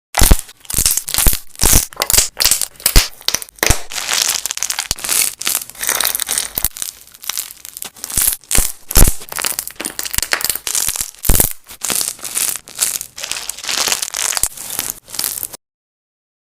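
Slime being squeezed and pressed by hand, giving a dense, loud run of crackling and crunching pops that cuts off suddenly near the end.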